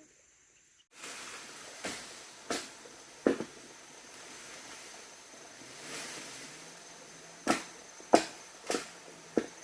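A hand tool striking repeatedly: sharp knocks, a few spread out, then a steady run of blows about every half-second to second.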